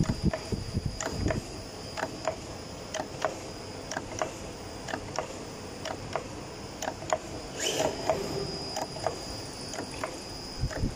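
Automatic dough divider running, its cutter mechanism clicking at an even rhythm of about two a second over a steady high whine. There is a brief hiss about three quarters of the way through.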